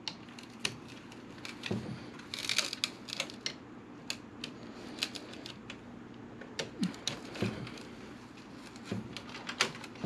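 Small plastic connectors and cables being handled and plugged into a fan controller block inside a computer case. Irregular sharp clicks and rattles, with a denser rustling cluster a couple of seconds in.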